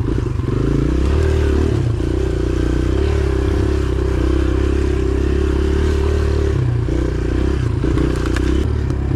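Kawasaki KLX dirt bike's single-cylinder four-stroke engine running at low, uneven throttle as it picks through a rough trail, the note dipping and picking up again about two-thirds through. A brief clatter near the end.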